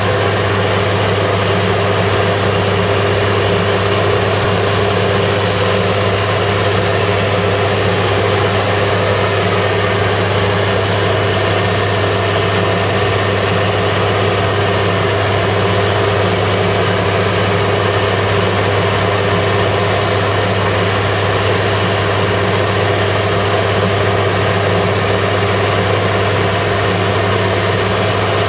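Fendt 930 tractor's six-cylinder diesel engine running at a steady, unchanging speed with a deep hum while the tractor stands still, powering a Schouten manure pump cart.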